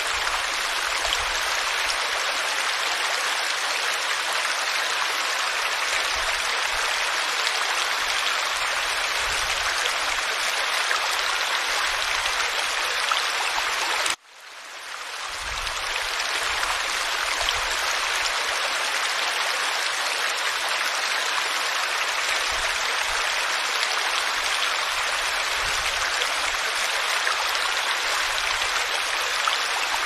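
Steady rush of running water from a small stream pouring over a low cascade. About 14 seconds in it cuts out for a split second and swells back in, a loop point in the recording.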